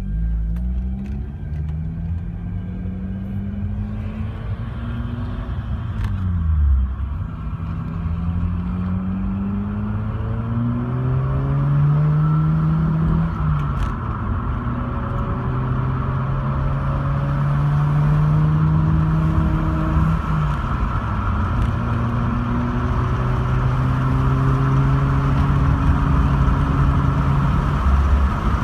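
Mazda RX-8's twin-rotor rotary engine running under load. Its pitch climbs over several seconds and then drops sharply, about four times. The engine is one that the owner says is misfiring.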